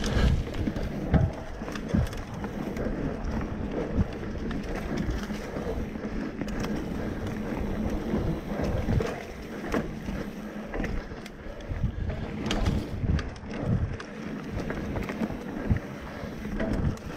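Mountain bike ride on a rough dirt trail: a steady rumble of tyres and wind buffeting the microphone, broken by scattered knocks and rattles from the bike going over bumps.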